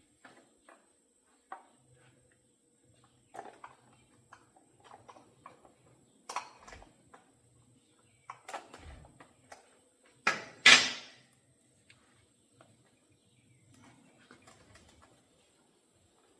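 Saw chain and bar of a Stihl chainsaw clinking and rattling as the chain is worked onto the bar and sprocket by hand: scattered light metallic clicks, with a louder double clatter a little after ten seconds in.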